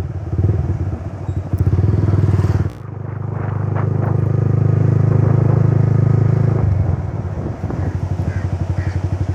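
Yamaha R15 V3's 155 cc single-cylinder engine running as the motorcycle is ridden along a road. The engine note dips briefly a little under three seconds in, builds to a steady, stronger run, then settles back into an even pulsing beat near the end.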